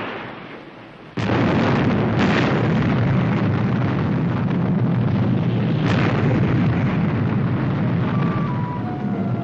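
Sound effect of a missile exploding on an island target: a sudden loud blast about a second in, then a long rumble of continuing explosions with fresh bursts about two and six seconds in. A few musical notes come in near the end.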